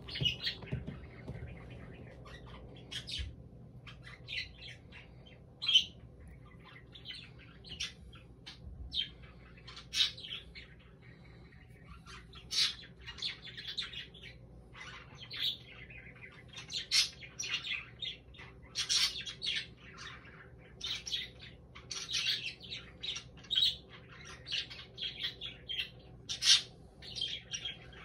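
Small birds chirping in many short, high calls, coming more often from about halfway through.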